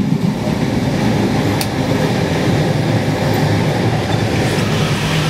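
Passenger train running at speed, heard from inside a couchette compartment: a steady rumble of the wheels on the rails and the carriage in motion, with one brief sharp tick about a second and a half in.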